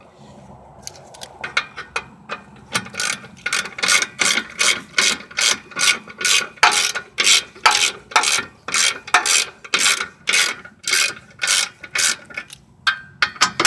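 Hand ratchet wrench being worked back and forth on a rear brake caliper bolt, a long run of clicking strokes about three a second, with a short pause near the end.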